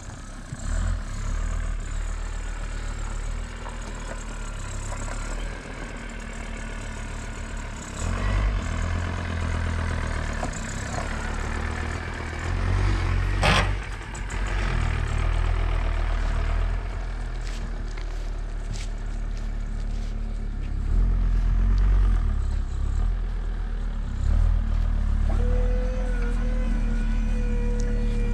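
VW T4 Transporter tipper's engine running and revving as the truck manoeuvres. Near the end a steady whine starts, as the tipper bed is raised.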